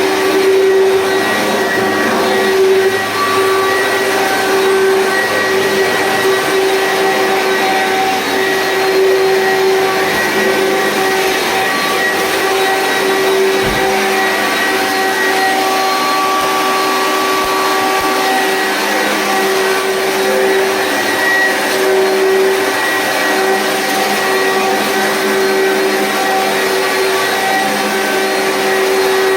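Commercial vacuum cleaner running steadily: a constant motor whine over a broad hiss, with no change in speed.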